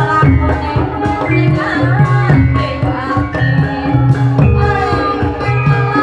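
Amplified Javanese gamelan music accompanying an ebeg horse dance: hand drums keep a busy beat under sustained metallophone tones, with a voice singing over it.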